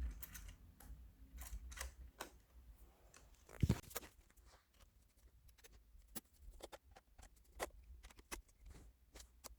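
Phillips screwdriver driving the screws of the iMac's RAM access cover back in: faint, irregular small clicks and ticks of metal on metal, with one louder knock about three and a half seconds in.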